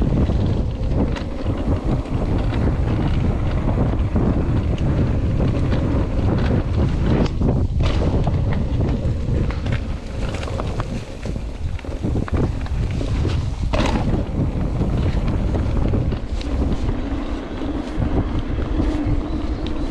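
Wind buffeting the microphone while riding an e-bike, a steady low rumble with a few sharp clicks. Near the end a steady whine comes in, the e-bike's motor.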